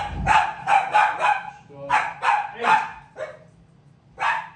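A dog barking: two quick runs of sharp barks, then two single barks, the last near the end, with a dull thump at the very start.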